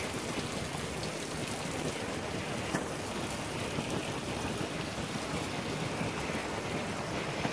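Water pouring and splashing out of a pickup truck just pulled up out of the river, running onto the concrete ramp as a steady rushing hiss, with a few small knocks.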